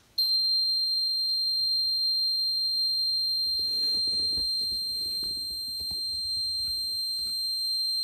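Kewtech plug-in socket tester sounding one steady, high-pitched buzz, starting as the socket is switched on. With its three lights lit, the buzz signals that the newly fitted socket is live and wired correctly.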